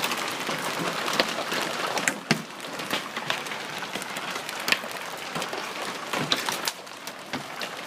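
Hailstorm with large hailstones: a steady hiss of hail coming down, broken by many sharp, irregular cracks of stones striking hard surfaces, a few much louder than the rest.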